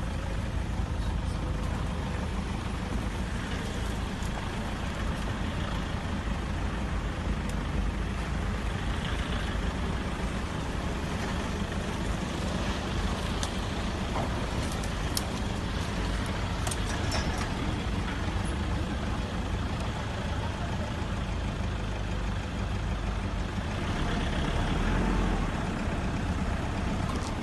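Safari jeep engines idling: a steady low rumble, with a few faint clicks about halfway through.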